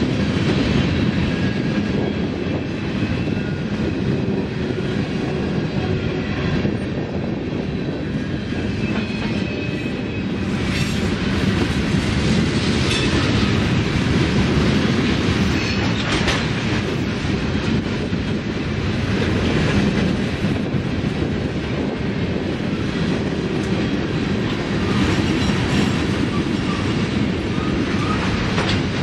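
Freight cars of a mixed train (gondolas, tank cars and covered hoppers) rolling steadily past: a continuous rumble of steel wheels on rail with clickety-clack over the rail joints, and a few sharp knocks midway.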